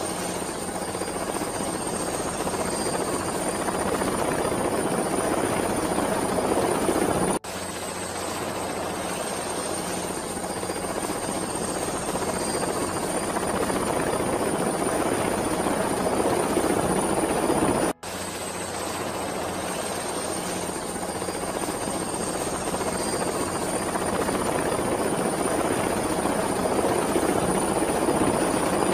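Helicopter in flight: dense rotor and engine noise with a steady high turbine whine. The sound cuts out for an instant twice, about a quarter and two thirds of the way through, each time restarting the same stretch as a loop.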